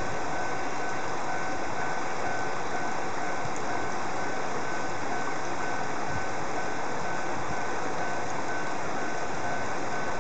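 A machine running steadily: an even mechanical hum with a constant whine that does not change.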